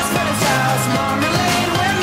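Pop music with a singer, loud and steady.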